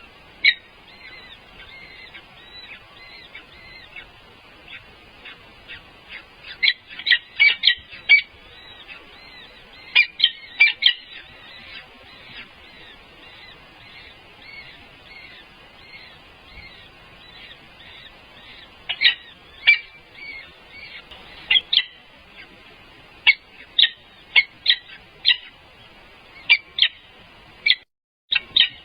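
Birds calling: many short, sharp high chirps in loose clusters over a faint steady twittering of calls. The sound breaks off for a moment near the end.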